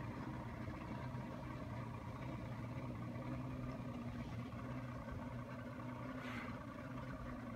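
Motorboat engine running steadily at low speed while coming in to dock, a steady low drone.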